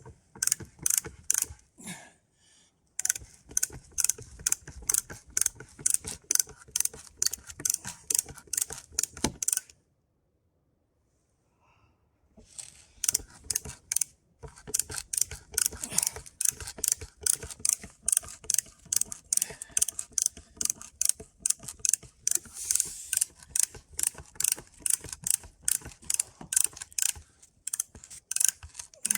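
Hand brace and auger bit boring into a tree trunk: a run of sharp ratcheting clicks, about three a second, as the brace is worked back and forth and the bit cuts into the wood. The clicking stops for a couple of seconds about ten seconds in, then carries on.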